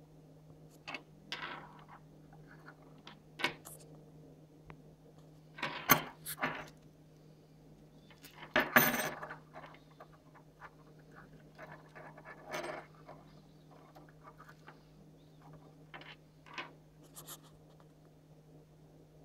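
Small steel spoke-diameter gauge and its metal ball chain clinking and jingling on a wooden desk as they are handled: scattered light clicks, louder about six and nine seconds in.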